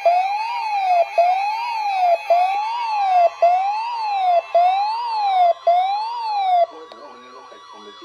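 Electronic siren-style emergency alert tone: one pitch sweeps up and back down about once a second, with a brief break between sweeps. It stops suddenly about six and a half seconds in, leaving only a much fainter sound.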